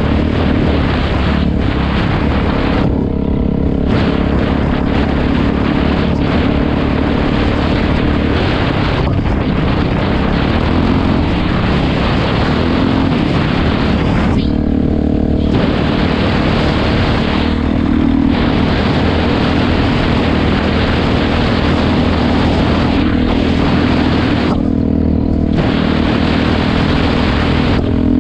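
Dirt bike engine running hard under way, heard close up from the bike with wind on the microphone; the throttle is briefly rolled off four times.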